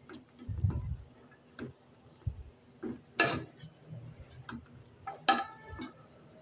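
Metal spoon scraping and clinking against the inside of a stainless steel pot while cooked biryani rice is turned over, in irregular light taps. A low thump comes just under a second in, and two louder ringing clanks come about three and five seconds in.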